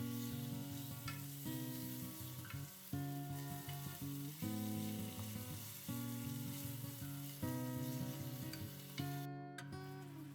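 Food sizzling as it fries in a pan, a steady crackling hiss, under background acoustic guitar music that changes chord about every second and a half.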